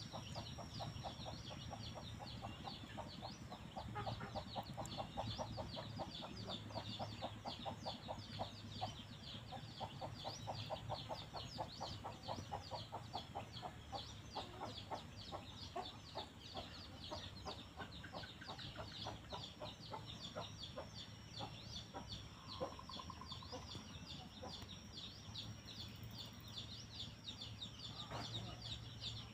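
Chickens clucking: a fast, steady run of short repeated clucks, with a constant high-pitched tone behind them.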